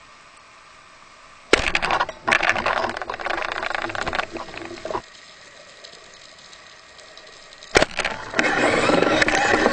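Rubber-band speargun fired underwater about one and a half seconds in: a sharp crack followed by a few seconds of loud crackling and rattling. Another sharp click comes near the end, then steady loud noise.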